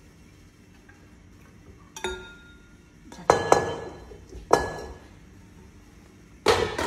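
A spatula knocking against a stainless-steel mixing bowl as whipped egg whites are tapped out of it into a glass bowl. There are four or five ringing metallic clanks, with a louder clatter near the end.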